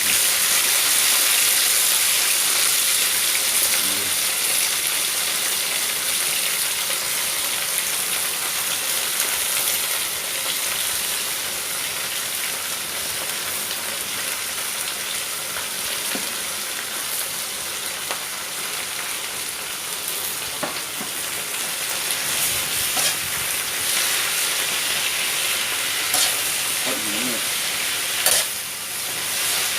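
Cabbage frying in hot oil in a pan, a steady sizzle that is loudest in the first few seconds. Occasional sharp clicks come from a spatula stirring against the pan.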